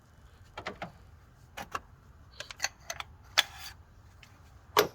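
Metal hand tools and parts clinking and clicking as they are handled in the engine bay, a dozen or so short irregular knocks with one brief scrape about three and a half seconds in; the engine is off.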